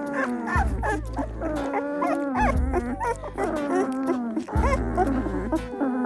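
Two-week-old Belgian Malinois puppies squeaking and whimpering in their sleep: many short squeals that rise and fall in pitch. Behind them plays blues music with a deep bass note about every two seconds.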